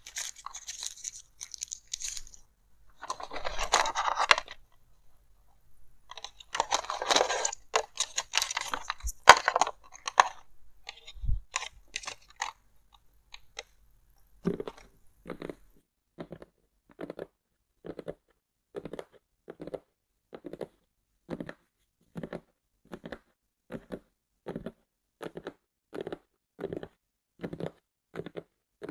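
Headphone box packaging handled close to the microphone: crinkling and rustling in irregular bursts, then, about halfway through, steady tapping on the box at roughly two taps a second.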